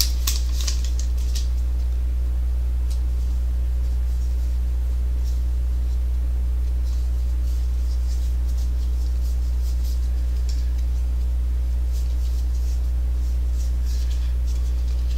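A steady low electrical hum, with faint, brief rustling of trading cards and foil pack wrappers being handled, mostly in the first second or so and a few times later.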